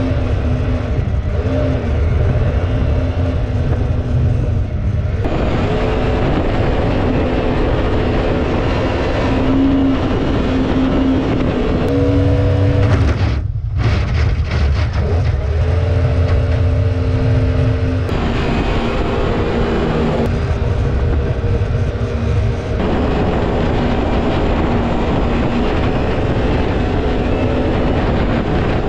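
A mini jet boat's 1053cc Yamaha four-stroke engine running hard through its jet drive, with water spray hissing. The engine note steps up and down several times as the throttle changes.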